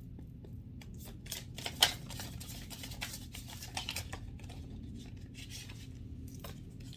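Oracle cards being shuffled and handled: an irregular run of soft flicks and scratches, with one sharper snap about two seconds in.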